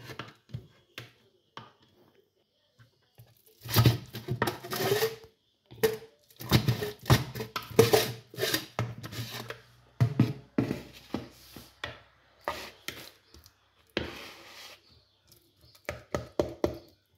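A fork mashing ripe bananas in a bowl: irregular spells of squishing and scraping with sharp clicks of the fork against the bowl, starting a few seconds in.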